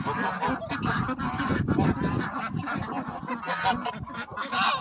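A large flock of domestic ducks and geese feeding, a continuous overlapping din of quacking and honking, with one louder call near the end.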